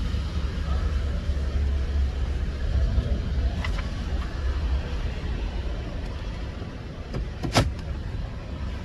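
Ford E150 van's engine running as a steady low rumble, heard from inside the cabin, with a sharp click near the end.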